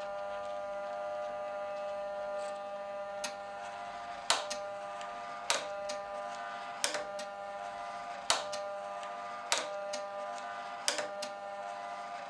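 NEMA 17 stepper motor whining steadily as it drives a 3D-printed planetary gearbox against a load cell, with a sharp click every second or so from about three seconds in, about seven in all. The clicks are gear teeth skipping under load before the motor stalls, which the maker puts down to the planet gears meshing too loosely with the second ring gear.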